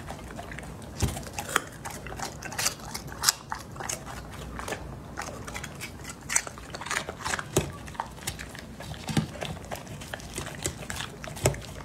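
A dog eating off a plate close up: irregular chewing crunches and sharp clicks, with licking at the plate.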